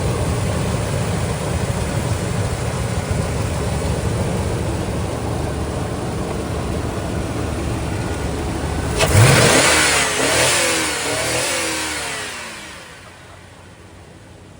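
Motor vehicle engine rumbling steadily. About nine seconds in, a louder vehicle sound rises suddenly, its pitch falling, and fades away over the next few seconds, as a vehicle passing by would.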